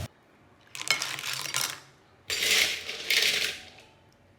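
Cooked sea snails clattering, their shells clicking against each other and the pan in two bursts of about a second each.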